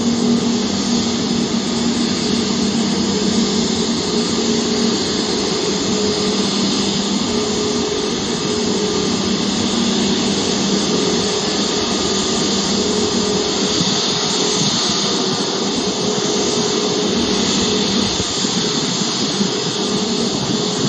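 Airbus A320neo's CFM LEAP-1A turbofan engines running at taxi power: a steady jet hiss with a low, even hum beneath it.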